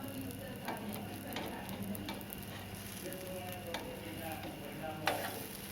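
Gram-flour pudla batter frying in oil with a steady sizzle. Several sharp taps or clicks sound over it, the loudest about five seconds in.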